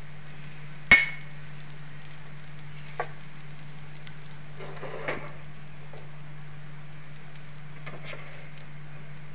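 A spoon knocks sharply against a non-stick dosa tawa about a second in, ringing briefly, then gives a few lighter taps and scrapes while spreading potato masala over the dosa. A steady low hum runs underneath.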